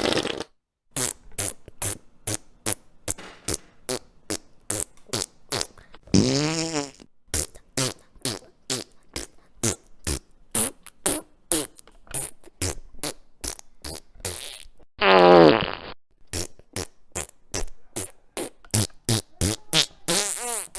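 A rapid string of short fart sounds, about three a second, broken by two longer, drawn-out pitched farts, one about six seconds in and one about fifteen seconds in.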